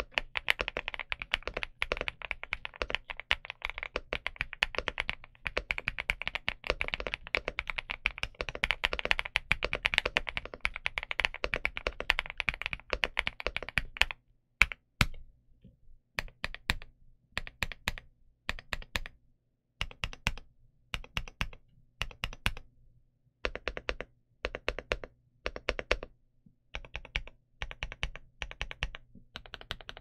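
Stock Infiverse Infi75 mechanical keyboard with Qing Ji Designer linear switches and PBT keycaps being typed on fast and continuously for about the first fourteen seconds. After that, keys are struck singly and in short runs with pauses between them.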